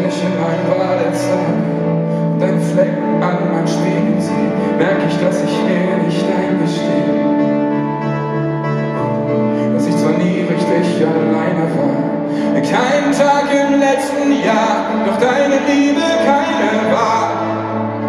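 Live pop-rock band playing in an arena, with guitars, keyboards and drums over sustained chords, heard from among the audience.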